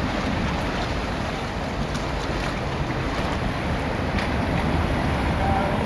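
Wind noise on the microphone over the steady rush of the Elbe in flood, its fast brown water running high past the stone bridge piers.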